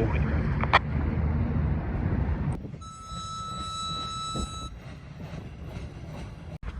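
Freight train running past with a steady low rumble that cuts off abruptly about two and a half seconds in. After that, a steady high tone sounds for about two seconds over a faint background.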